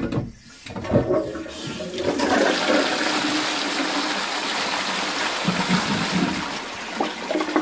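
Post-1945 STOM Cardiff 146 cast-iron bell cistern flushing a toilet pan: a couple of knocks as it is set off, then water rushing down the flushpipe and churning through the pan for about five seconds, easing off near the end. A strong, proper flush with the heavier replacement bell fitted.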